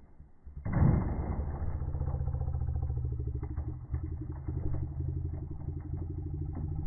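Traxxas Sledge Hammer VXL radio-controlled truck launching hard from a stop about a second in, then running at speed with a steady, fast-pulsing motor and drivetrain drone.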